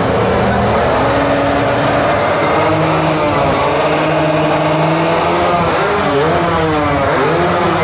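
Several Kawasaki Ninja RR 150 two-stroke motorcycle engines running together and being revved, their pitches overlapping and gliding up and down, with quicker throttle blips in the second half.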